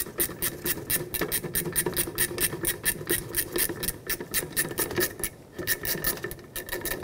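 Ratcheting 10 mm wrench clicking quickly and evenly, about six clicks a second, as it backs out a brake caliper's lower slider pin bolt, with a short break near the end.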